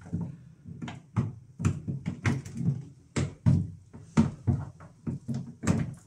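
Metal door hinge of an LG front-loading washing machine knocking and clicking against the front panel as it is hooked back into its slots: a string of irregular sharp knocks and clicks.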